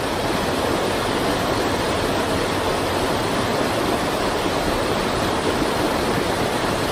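Floodwater pouring off the deck of an elevated road bridge in many sheets: a steady rush of falling water.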